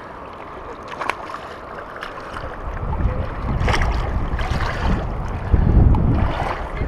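Wind buffeting the microphone, growing stronger after about two seconds, with a few short splashes from a hooked bass thrashing in shallow water as it is reeled to the bank.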